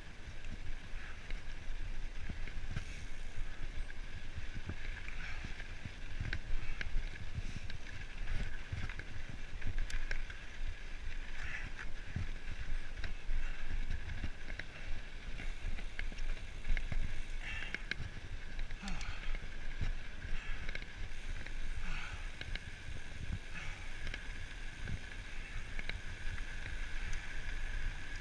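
Mountain bike riding down a dirt and gravel trail: tyres rumbling and crunching over the ground, and the bike rattling and knocking over bumps. A steady high hum runs underneath.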